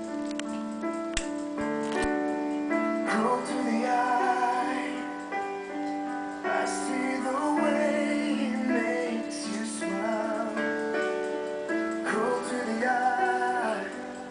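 Background song: piano chords with a singing voice coming in about three seconds in.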